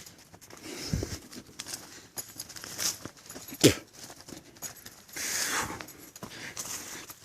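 A hiker's footsteps on a dirt woodland trail, uneven steps with one sharp thump a little past halfway, and a rustling swish about five seconds in.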